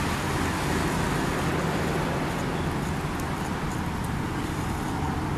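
Steady hum of background road traffic, even and unbroken, with a few faint high ticks.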